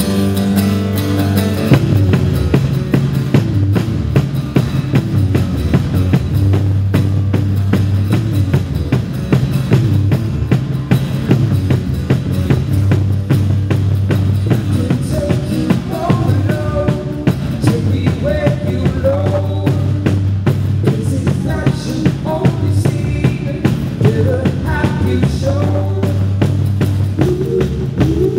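A rock band playing a song at a sound check: drum kit, bass and guitars, with a melody line, singing or lead guitar, coming in about halfway through.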